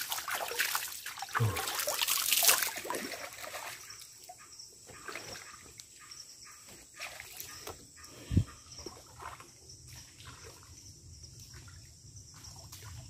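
Spring water splashing and trickling, loudest for the first few seconds and then a quieter trickle with scattered small splashes. A steady high insect drone runs underneath, and there is a single dull thump about eight seconds in.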